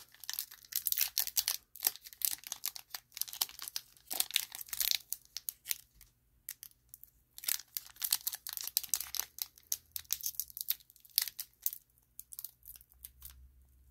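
Foil wrapper of a Pokémon card booster pack crinkling and crackling in irregular bursts as fingers pinch and pull at it, trying to tear it open, with short pauses.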